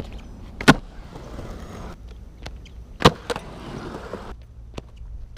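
Skateboard slapping down onto concrete with a sharp clack under a second in, then its wheels rolling over the concrete; a second loud clack comes about three seconds in, followed by a smaller knock and more rolling.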